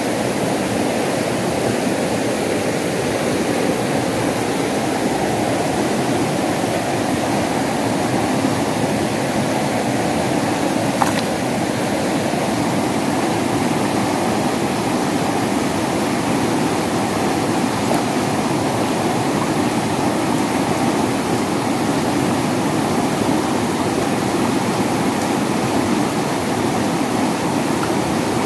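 Fast-flowing river current rushing steadily around a person standing chest-deep in it. One faint click about eleven seconds in.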